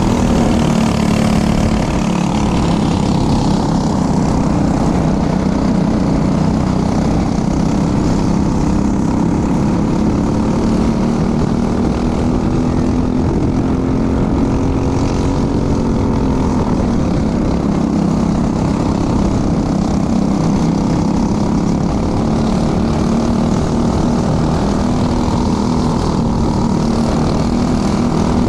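Racing kart engine running hard at race speed, heard onboard with wind noise on the microphone. Its pitch stays fairly steady, dipping briefly about halfway through as the kart slows for a corner, then climbing back.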